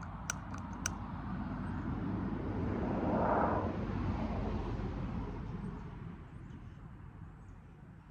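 Three sharp clicks of a lighter being struck, then a vehicle passing by, swelling to its loudest about three seconds in and fading away.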